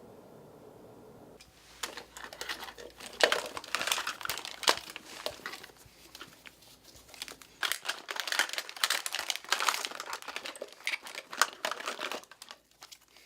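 Someone rummaging through belongings: irregular crinkling and rustling with a few sharper knocks as things are handled and moved. It starts about a second and a half in and stops shortly before the end.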